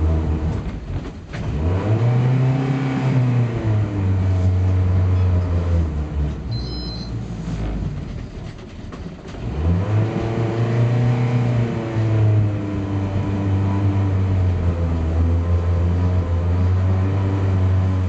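Boat engine running on a cold morning start: it revs up about two seconds in, sags and loses pitch around eight seconds, then revs up again and holds before dropping back near the end.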